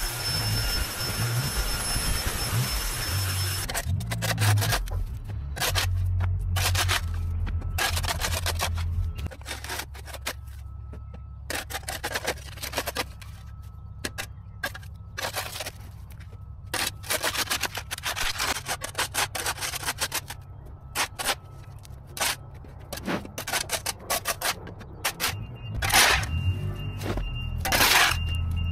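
A long-handled shovel scraping along a concrete driveway and scooping soil and debris: a long run of short, sharp scrapes and knocks, loudest near the end. Background music with a steady bass plays under it. For the first four seconds a steady motor noise runs, then cuts off abruptly.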